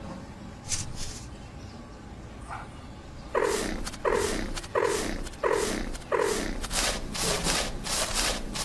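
A cartoon animal's voice giving a run of about eight short cries, each sliding down in pitch, coming about one and a half a second, starting about three seconds in; a few short hissing noises come before them.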